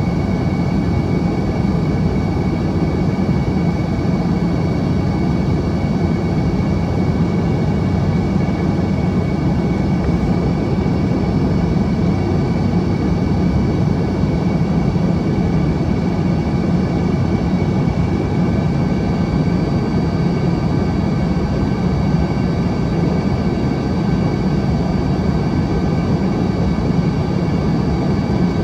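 Cabin noise of an Embraer ERJ-145 in flight during its descent: a steady rush of airflow and engine noise from its rear-mounted Rolls-Royce AE 3007 turbofans, with a few faint steady whining tones on top.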